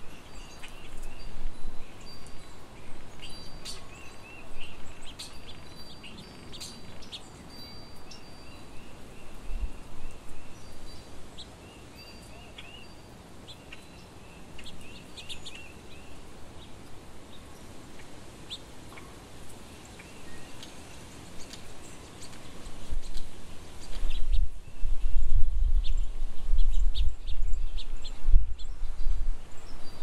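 Small songbirds giving short, high chirps and tweets, busiest in the first dozen seconds, over steady outdoor background noise. A low rumble comes in for the last several seconds.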